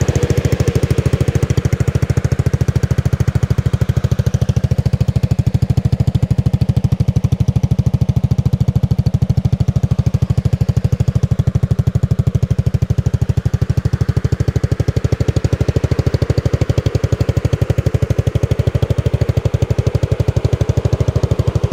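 A go-kart's 250cc single-cylinder, water-cooled engine idling steadily, an even, rapid beat of firing strokes.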